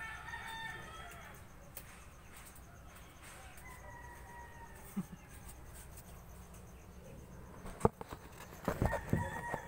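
Faint backyard rooster crowing in the background, with a sharp knock about eight seconds in and louder calls or voices near the end.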